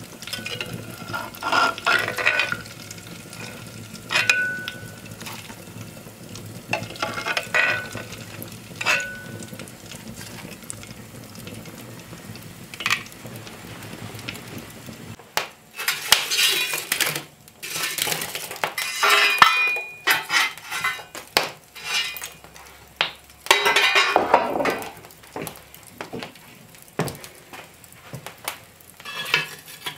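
Cooking clatter at an open hearth: a metal utensil clinking against a cast-iron pot and an earthenware dish while fried eggplant slices are handled. A low steady fire and frying noise lies beneath. About halfway through, the clinking and scraping of pots and utensils becomes busier.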